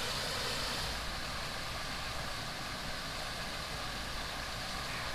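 Water spilling over a small concrete weir in a canal: a steady, even rush.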